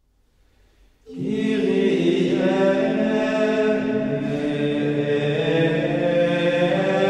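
Intro music of voices singing a slow chant in long held notes, coming in suddenly about a second in.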